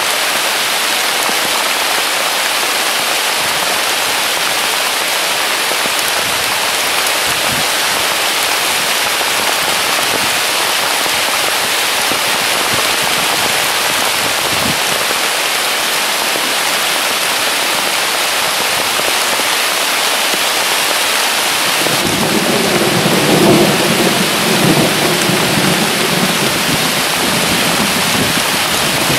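Heavy rain pouring down steadily. About three quarters of the way through, a low rolling rumble of thunder sets in under the rain and keeps going.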